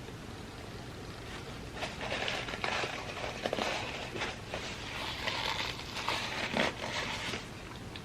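Close-miked chewing of food, with wet, crackly mouth sounds starting about two seconds in and stopping near the end.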